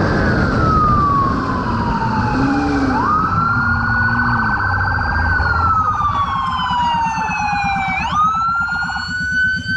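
Police motorcycle siren wailing: a tone that slowly rises and falls in pitch, going through about two full cycles, over the steady running of the motorcycle's engine during a pursuit.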